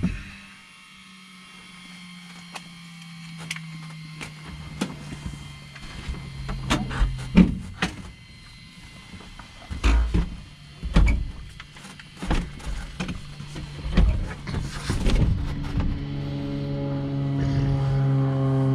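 A switch clicks and a low electric whine from the cabin slowly sinks in pitch over several seconds, like an instrument gyro spinning down once power is cut. A scattered run of knocks and clicks follows. Music fades in near the end.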